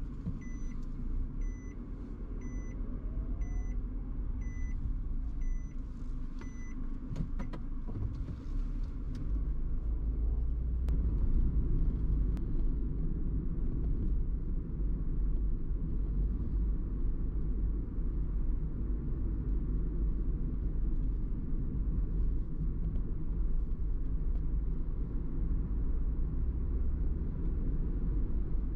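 Car driving, a steady low rumble of engine and road noise that grows louder after about eight seconds. Over the first seven seconds come seven short electronic beeps about a second apart, then a few sharp clicks.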